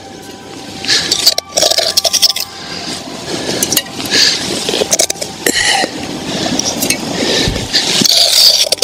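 A cup scooping snow and tipping it into a cookpot on a small gas stove to melt down for water, with repeated crunching scrapes of snow and light clinks of the cup against the pot.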